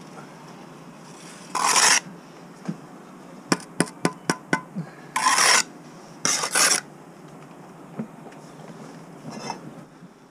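Steel brick trowel scraping and working mortar on brickwork in three loud scrapes, with a fainter one near the end. Between them comes a quick run of about seven light taps as the trowel knocks a brick down to the line.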